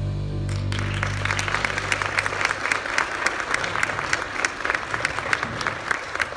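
Audience applauding, with the clapping starting just under a second in as the last held note of the song's accompaniment fades away over the first couple of seconds.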